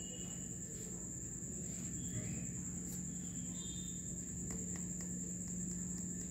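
Insects, most likely crickets, trilling in one unbroken high-pitched tone, over a steady low hum.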